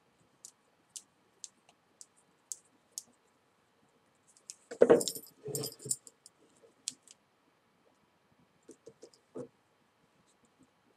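Small beads on a beaded paracord dog collar clicking and jingling lightly as the collar is handled and cord is threaded through it, with a louder burst of rattling and rustling about five seconds in.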